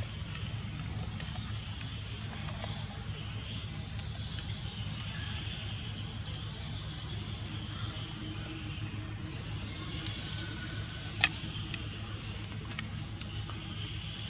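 Steady outdoor ambience: a low rumble under a faint high drone that swells in the middle, with one sharp click about three-quarters of the way through.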